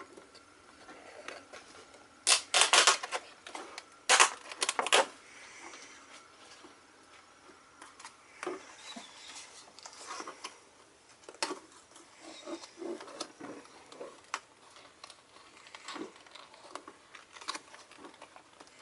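Stiff plastic blister packaging crackling as it is handled and its backing plate is pulled off, with two loud bursts of crackling a couple of seconds in and about four seconds in, then lighter rustling and clicks.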